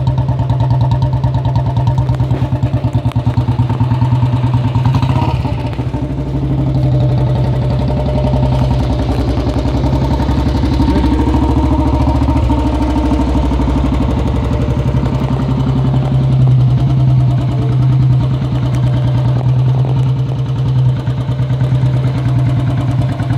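Motorcycle engine idling with a steady, even thump of firing pulses.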